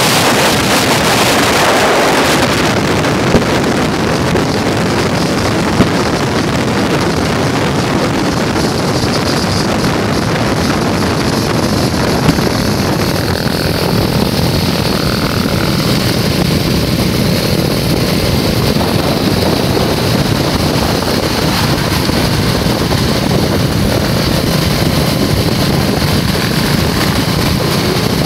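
A motor running steadily under wind rushing over the microphone; the wind is strongest in the first couple of seconds, and there are a few sharp knocks.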